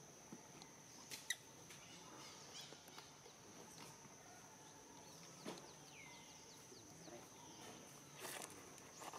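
Faint outdoor ambience: a steady high thin whine with scattered faint falling chirps and a few short sharp clicks, the loudest about a second in.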